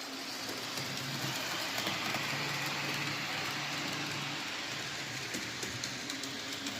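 HO scale model of a Santa Fe FT diesel locomotive running around the layout: a steady hum from its small electric motor and its wheels rolling over the rails, with a few light clicks near the end.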